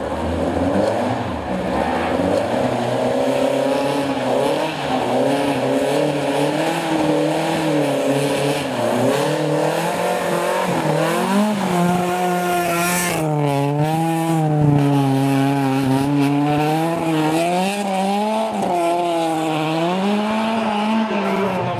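Rally car engine under hard driving, revving up and falling back over and over, the note rising and dropping every second or two as the driver works the throttle and gears. About halfway through there is a brief loud hiss.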